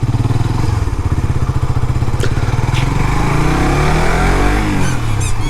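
Motorcycle engine pulling away and accelerating, its pulsing note rising in pitch from about halfway through and falling back near the end, with wind noise over it.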